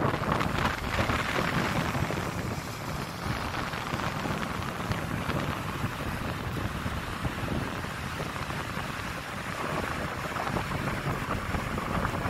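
Sea surf washing steadily onto a flat sandy beach, with wind buffeting the microphone in a continuous low rumble.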